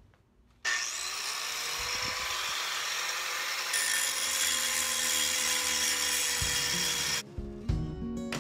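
Angle grinder fitted with a grinding wheel, grinding a weld on a metal handle down toward flat. It starts about half a second in as a loud steady hiss and stops suddenly near the end. Acoustic guitar music comes in just before it stops.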